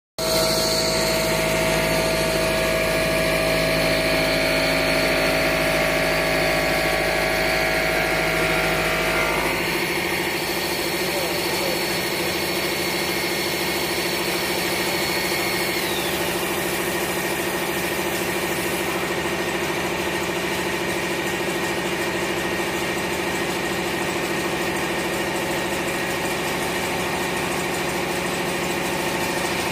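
CNC stone router running, with a steady electric whine and hum from its machinery. About ten seconds in the low hum drops away and the tone changes. A little past halfway a high whine slides down in pitch.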